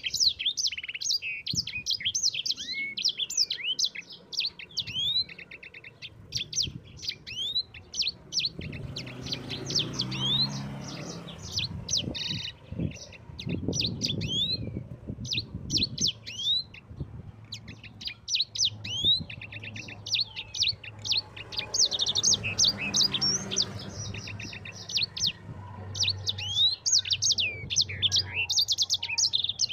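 Sanger (yellow-fronted canary) singing a long, rapid rolling song of fast chirps and trills with hardly a break. A low rumble runs underneath for several seconds around the middle and again later on.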